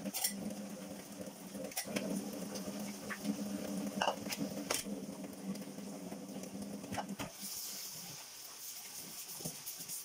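Dishes being washed by hand at a kitchen sink: sponge scrubbing and scattered knocks and clinks of ceramic bowls, a plate and cutlery, over a steady low hum. About seven seconds in the tap comes on and water runs steadily.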